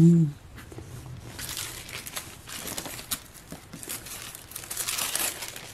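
Paper rustling and crinkling as hands handle a sheet of thin deli paper and press it flat onto a wet painted page. The rustling comes in uneven bursts, heaviest about two seconds in and again near the end.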